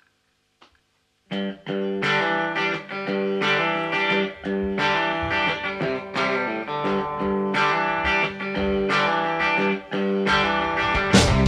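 Electric guitar with effects and some distortion starts the song's intro after about a second of near silence, playing a repeating pattern of ringing notes. Near the end the drum kit comes in.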